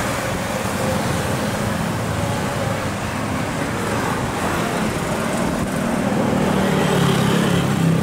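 Strong wind blowing across the microphone as a steady rumbling rush. A low engine hum grows louder near the end.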